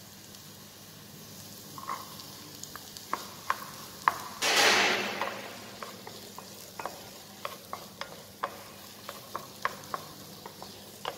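Chopped vegetables sizzling in a small non-stick pan; about four and a half seconds in, a bowl of cut green beans goes into the hot pan and the sizzle surges for about a second. A wooden spatula then stirs, tapping lightly and often against the pan.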